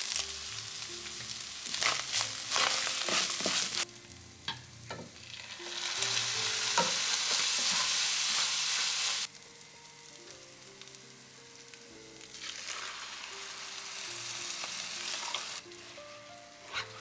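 Food sizzling in hot oil in a frying pan while being stirred, with a few clicks of the utensil against the pan in the first stretch. The sizzle comes in three stretches that start and stop abruptly, with quiet background music underneath.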